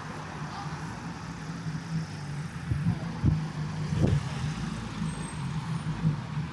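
City street traffic: a vehicle engine running with a steady low hum, with a few short knocks about halfway through.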